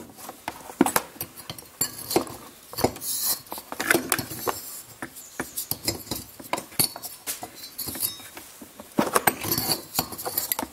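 Stick (arc) welding: the electrode arc crackling and spitting in irregular bursts, with sharp pops, heaviest near the end.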